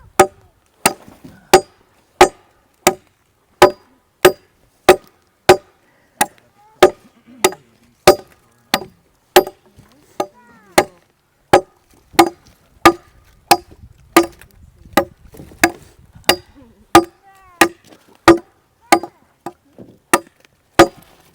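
Machete blade chopping into wood in a steady rhythm, about one and a half sharp strikes a second, each with a brief metallic ring. The strokes are light and even, aimed for accuracy rather than force.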